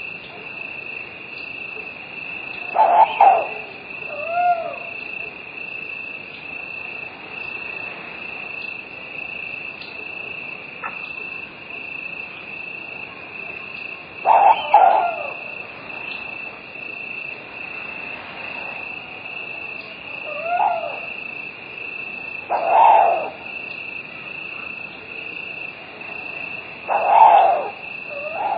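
Night ambience: a steady, high-pitched chorus of crickets, with an owl hooting every few seconds, often two calls close together.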